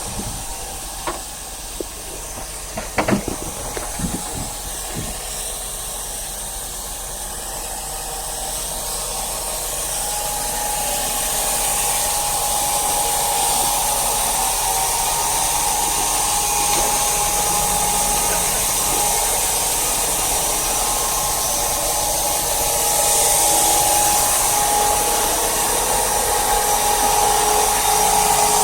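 A few sharp knocks, then a steady machine whine and hiss that grows louder from about eight seconds in and again near the end.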